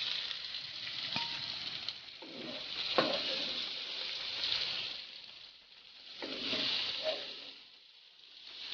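Bitter gourd, onion and tomato masala sizzling in oil in a wok, with a wooden spatula stirring and scraping through it. The sizzle swells and fades, and the spatula knocks against the pan about one and three seconds in.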